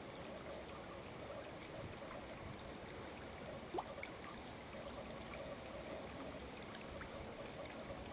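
Faint, steady trickle of running water at a garden koi pond, with one short tick about halfway through.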